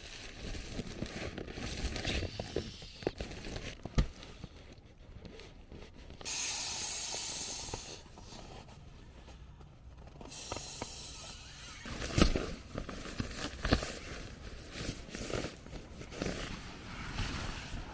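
Rustling and crinkling of nylon sleeping gear (pump sack, inflatable sleeping pad and pillow, bivy bag) being handled, with a few sharp knocks. About six seconds in there is a steady rush of air for about two seconds as air is pushed into the inflatable gear.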